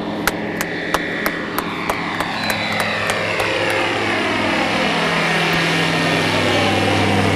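Light sport floatplane's propeller engine running steadily at high power in flight, its tone sliding lower through the middle as it passes by. A row of sharp clicks, about three a second, sounds over it in the first three seconds.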